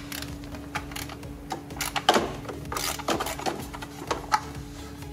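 Hand ratchet with a 10 mm socket clicking in irregular strokes as it spins a loosened nut off the upper intake manifold, with a steady low hum beneath.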